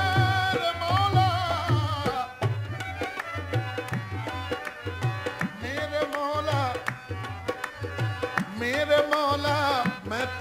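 Qawwali music: tabla drumming a steady rhythm under a harmonium melody, with held notes near the start and a gliding melody later.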